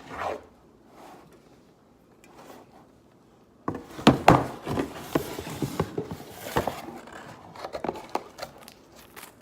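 Near quiet for the first few seconds, then from about four seconds in a busy run of knocks, taps and rustling from boxes and their contents being handled.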